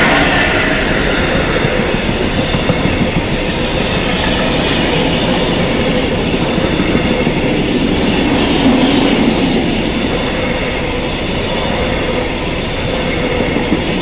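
Freight train passing: the locomotive goes by at the very start, then a line of loaded flat wagons rolls past with a steady noise of wheels on rail.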